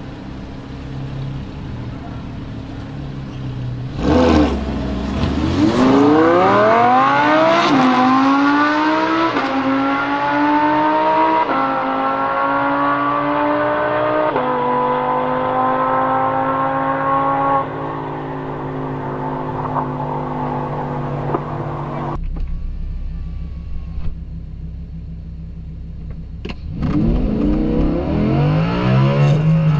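Lamborghini Huracán LP610-4's naturally aspirated V10 idling, then launching hard about four seconds in and accelerating with a rising note broken by about five quick upshifts, fading as the car runs away down the drag strip. Near the end, heard from inside the cabin, the engine note rises again under hard acceleration.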